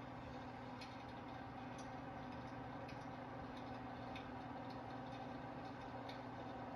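Electric fireplace insert running: a faint steady hum with light, irregular ticks about once a second.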